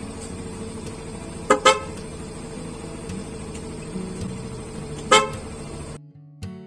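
Aftermarket PIAA loud horn on a motorcycle, wired through a relay, giving short toots: two quick blasts about a second and a half in and one more about five seconds in, over a steady hum. The hum stops near the end and guitar music begins.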